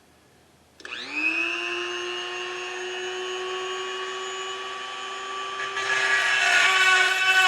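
Dremel rotary tool switched on about a second in, its motor whine rising as it spins up and then holding steady. Near the end it gets louder and rougher as the spinning bit bites into the radio's metal chassis.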